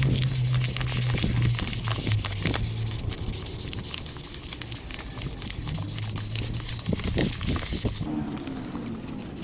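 Cloth scrubbing along a motorcycle's metal exhaust header pipe: a continuous rough hissing rub made of many short scratchy strokes.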